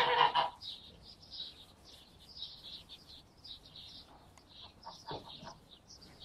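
Small birds chirping over and over in the background, high-pitched, with a short loud noise right at the start and a few soft rustles about five seconds in.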